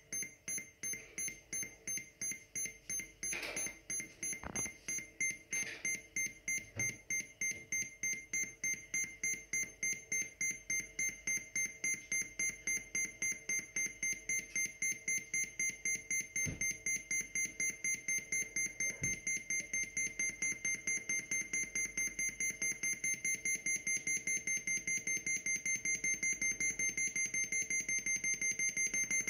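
Electronic beeper of an airsoft bomb prop counting down to its mock detonation, giving short high beeps that come faster and faster, from about two a second to about four near the end, as the timer runs out.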